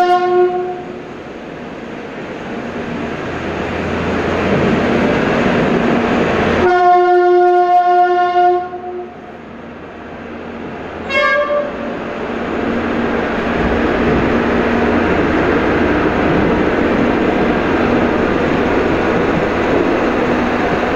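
Road-rail vehicle running on the rails inside a tunnel, its engine rumbling steadily. Its horn blasts, ending just after the start, sounds again for about two seconds roughly a third of the way in, and gives a short higher toot about halfway.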